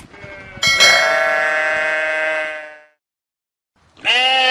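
Domestic sheep bleating: one long, steady baa of about two seconds, then a second, shorter bleat near the end.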